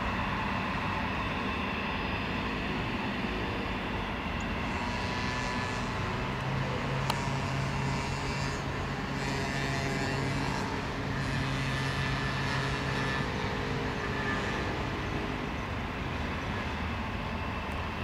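Embraer Legacy 600's two rear-mounted Rolls-Royce AE 3007 turbofans running steadily at taxi power. A single brief click sounds about seven seconds in.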